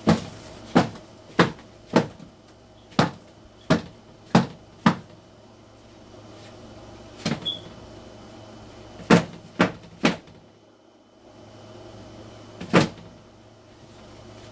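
Sharp knocks of roach-covered egg flats being struck against a bucket to shake Dubia roaches off: a quick run of eight knocks in the first five seconds, then about five more, spaced further apart.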